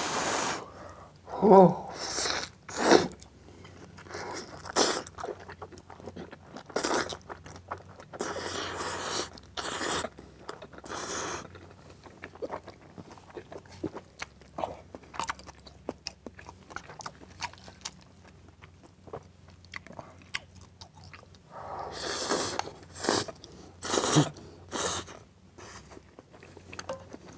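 Close-miked eating of saucy black-bean and spicy instant noodles with runny-yolk fried egg: wet chewing and mouth smacks, broken by a few longer slurps of noodles.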